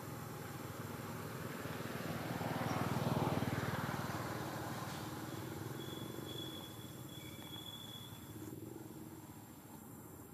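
A low, rapidly pulsing engine hum that swells to its loudest about three seconds in, then fades away.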